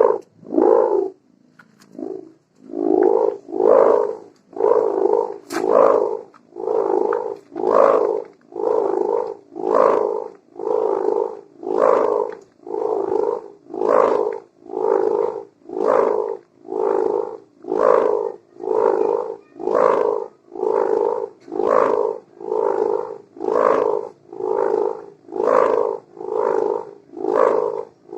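Sendaren kite hummer, a strip of split plastic film joined to gift ribbon and stretched on a bow, buzzing in a rough snoring drone. The drone swells and fades about once a second, dropping out briefly near the start.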